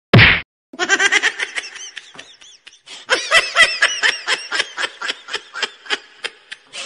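A single loud bang, like a gunshot, just at the start, followed by a person laughing hard in rapid bursts that run on, with a short lull partway through before picking up again.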